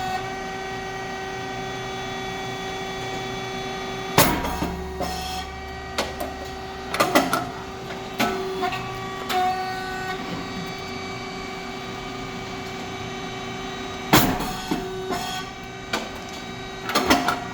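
Puffed rice cake machine running a production cycle: a steady machine hum with scattered mechanical clicks, and a loud pop about four seconds in and again ten seconds later as the heated moulds open and the rice cakes puff.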